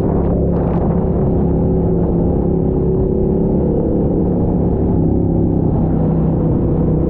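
Motorcycle engine running at a steady cruising speed: a steady, even drone.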